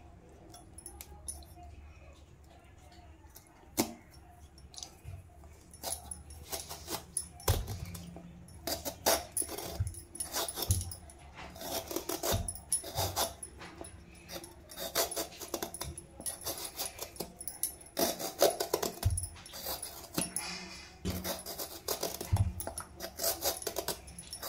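Serrated vegetable peeler scraping the skin off a bottle gourd in quick, irregular strokes, with a few dull knocks in between.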